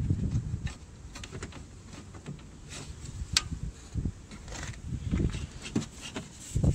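Scattered light clicks and taps of hands working the Range Rover door's exterior release cable and its plastic guides inside the door, with the sharpest click about three and a half seconds in. A low, uneven rumble of wind on the microphone runs underneath.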